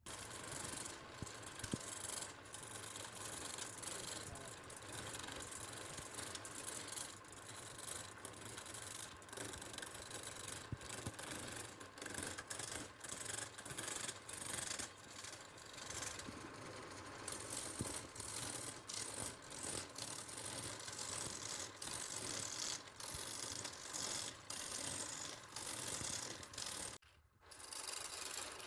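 Woodturning lathe with a gouge cutting a spinning wooden blank: a continuous scraping hiss with many irregular clicks and rattles. It breaks off briefly near the end, then resumes.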